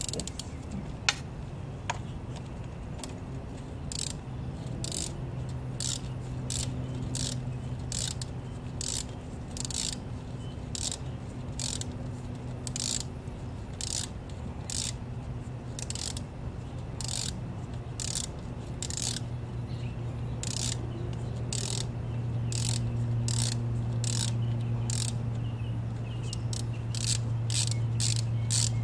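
Ratchet wrench clicking as it is swung back and forth on a bolt of the dirt bike, about one to two ratcheting bursts a second, quickening near the end. A steady low hum runs underneath and grows louder in the second half.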